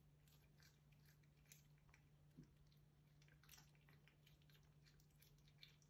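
Domestic cat chewing a locust: faint, irregular crunching clicks.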